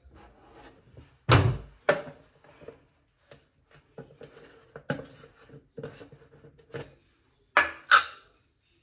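A series of household knocks and thuds: a loud pair of sharp thumps about a second in, a run of lighter knocks in the middle, and another loud pair near the end.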